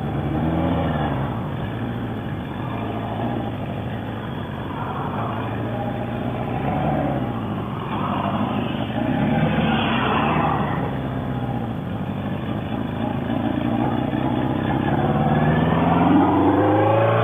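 Motorcycle engine running under way, its pitch rising and falling with the throttle and climbing steadily near the end as it accelerates, over a steady rushing noise.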